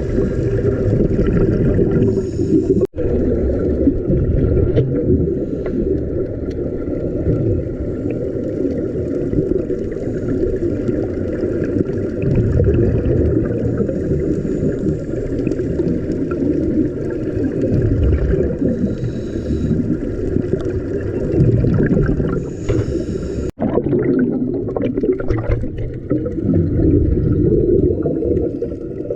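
Muffled underwater rumble and water noise picked up by a camera in its housing while diving, broken by two brief dropouts at cuts, about three seconds in and near the end.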